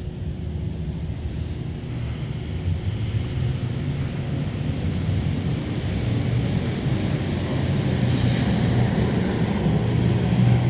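Low engine rumble growing gradually louder, with a short rise of hiss about eight seconds in.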